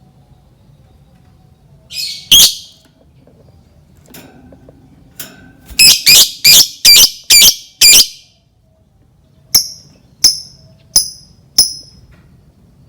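Lovebird giving a series of shrill calls: a short burst about two seconds in, then six loud calls in quick succession, then four shorter chirps a little under a second apart.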